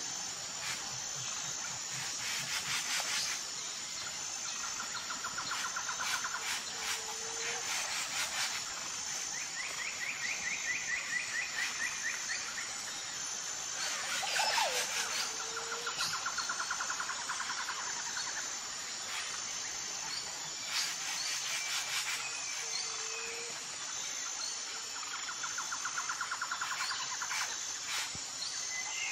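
Outdoor nature ambience of birdsong and insects. Rapid bird trills come every few seconds over short low whistles, above a steady, pulsing high chirring.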